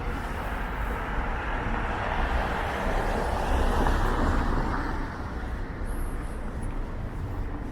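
A car passing on the street, its tyre and engine noise swelling to a peak about four seconds in and then fading, over a steady low rumble.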